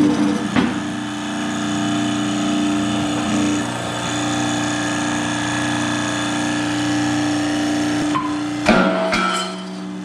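Hydraulic shop press running with a steady hum as its ram pushes a bearing out of a round baler gear. Near the end there is a sharp crack as the bearing breaks free, a second knock follows, and the hum drops lower.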